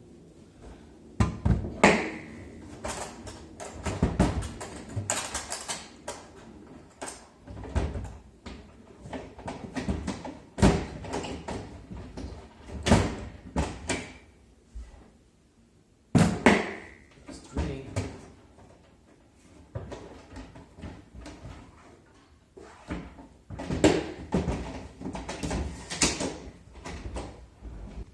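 Irregular knocks, clicks and clunks of a plastic rolling toolbox being handled, its parts and lid bumping and snapping together, with a few sharper clacks that ring briefly.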